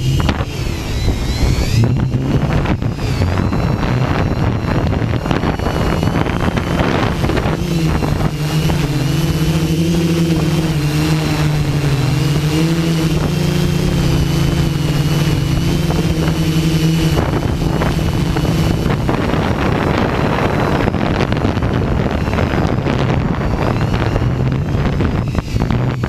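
Hexacopter's electric motors and propellers humming, their pitch wavering up and down as the motors adjust, with gusting wind buffeting the microphone.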